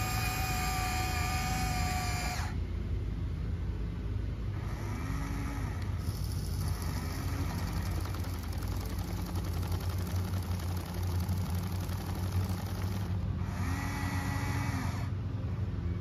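Huina RC excavator's electric motors whining as it works its arm and bucket into a dirt pile, over a steady low hum. A high motor whine runs for the first two or three seconds, drops away, and comes back briefly near the end.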